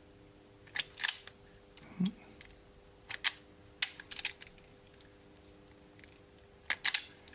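Wire strippers clicking and snipping on the insulation of limit-switch wire ends, in short clusters of sharp clicks about a second in, three to four seconds in, and near the end, over a faint steady hum.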